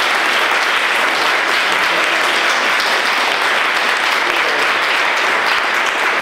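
Audience applauding: steady, dense clapping from a room full of people that cuts off sharply at the end.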